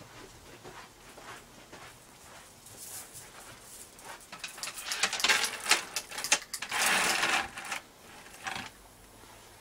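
Rustling and clicking of a purse being rummaged through by hand, a flurry of quick handling noises that grows denser about five to eight seconds in.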